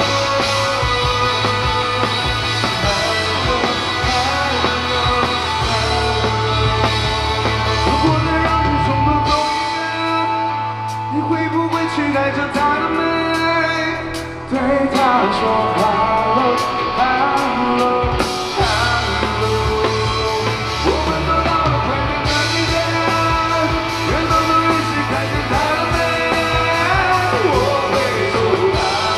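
Live rock band playing an instrumental stretch with electric guitar, bass and drums. About ten seconds in, the bass and drums drop out for roughly five seconds, leaving guitar, before the full band comes back in.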